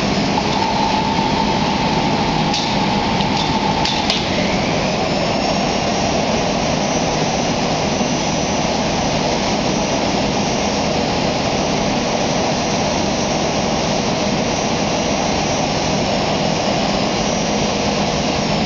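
Wide industrial sheeter and cutter running through a roll, feeding and cutting sheets automatically. It makes a steady, loud mechanical noise, with a few clicks a few seconds in and a faint high whine that rises about four seconds in and holds until near the end.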